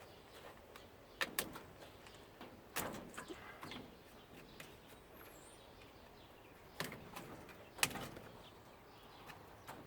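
A few sharp, spread-out metal knocks and clinks as a washing machine's parts are worked loose by hand, some briefly ringing. A faint bird chirp about five seconds in.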